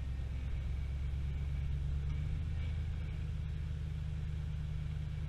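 Ram Power Wagon's HEMI V8 running with a steady low rumble as the truck's front bumper pushes against a leaning wall; the engine note shifts about two seconds in.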